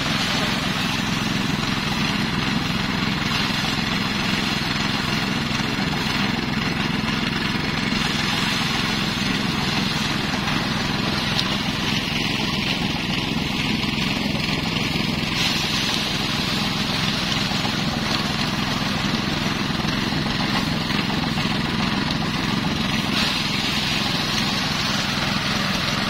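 Small engine driving a portable rice thresher, running steadily and without a break as bundles of rice stalks are fed into its drum.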